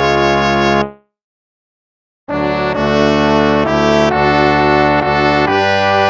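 Instrumental hymn music played with brass-sounding sustained chords. The music stops abruptly about a second in, is silent for over a second, then comes back with a new phrase of held chords.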